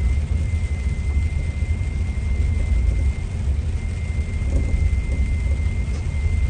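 Scania engine of a Marcopolo Paradiso 1800 DD double-decker coach running, a steady low rumble with a thin, steady high tone over it.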